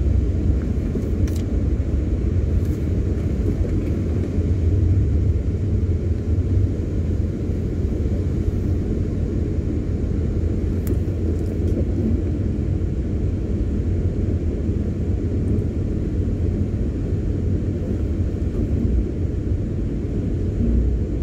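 Steady low rumble of a van's engine running as it creeps forward along a ferry's enclosed car deck, heard from inside the cab.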